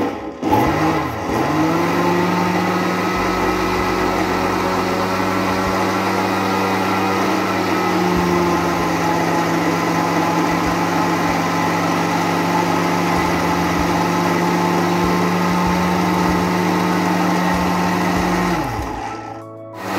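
Electric countertop blender blending strawberries and milk into a milkshake. The motor gives a short pulse about half a second in, then runs at a steady pitch, and near the end it winds down to a stop with a falling pitch.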